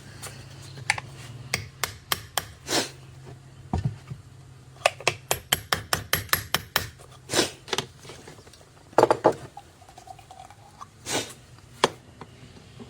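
Hammer blows driving the metal insert out of a polyurethane motor-mount bushing: a series of sharp knocks that quicken to about four a second in the middle, with a few heavier blows later on.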